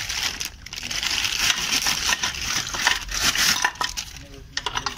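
Rustling and scraping noise with light metallic clinks as new suspension parts are handled. The rustling fades out about three and a half seconds in, leaving a few separate clicks.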